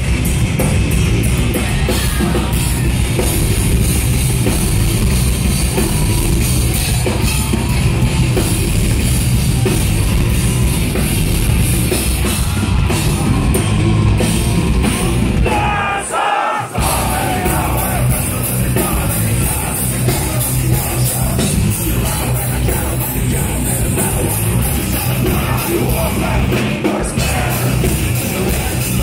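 Heavy metal band playing live through a loud PA, heard from within the crowd: distorted electric guitars, pounding drums and shouted vocals. About sixteen seconds in, the bass and drums cut out for under a second before crashing back in.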